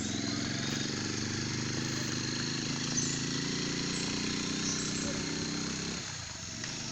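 A small engine running steadily, dropping away about six seconds in, over a high steady hiss with a few short chirps.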